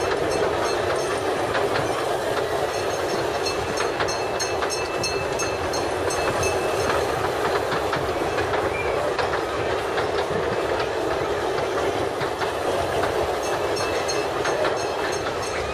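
Steady din of fairground ride machinery running, a continuous rumbling clatter with scattered sharp clicks and rattles.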